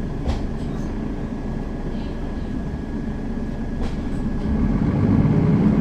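Mercedes-Benz Citaro facelift city bus heard from inside while under way: steady engine and road rumble that grows louder from about four and a half seconds in, with a couple of short rattling clicks.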